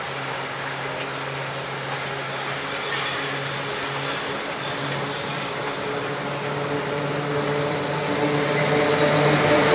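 Six-axle electric locomotive FZe 6/6 2002 running with a train of heritage coaches, a steady motor hum over wheel-and-rail noise. It grows steadily louder over the last few seconds as the train approaches.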